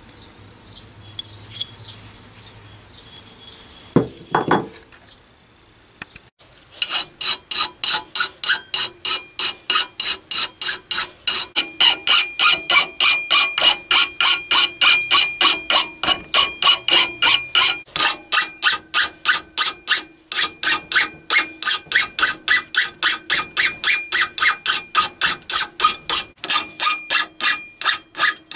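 Hand file drawn rapidly back and forth across the steel head of a hatchet clamped in a bench vise: an even rasping of nearly three strokes a second, with a steady metallic ring from the steel, starting about six seconds in. Before it come a few faint scattered handling sounds and a knock about four seconds in.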